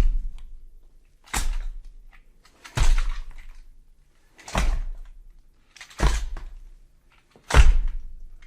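Six heavy bangs, evenly spaced about one and a half seconds apart, each dying away over about a second: a pounding or slamming horror sound effect.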